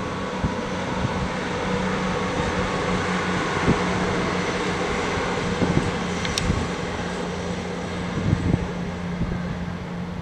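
Class 158 diesel multiple unit running past with a steady engine drone, with occasional low thumps and a couple of sharp clicks.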